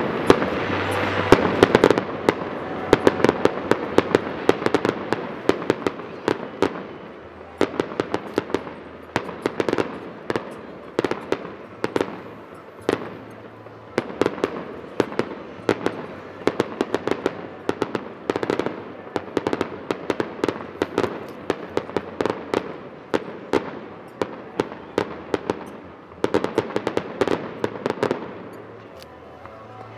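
Fireworks display going off in a rapid string of bangs and pops, many reports a second, with a loud flurry near the start and another just before the end, then dying down.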